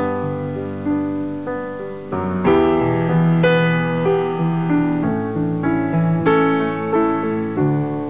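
Piano music without singing: an instrumental passage of a song, with chords struck about once a second and left to ring.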